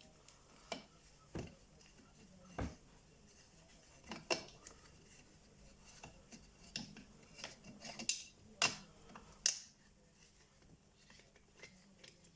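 Hand tools and screws clicking and clinking against a STIHL MS 180 chainsaw as its muffler is unbolted: scattered, irregular sharp taps and clicks, about ten in all.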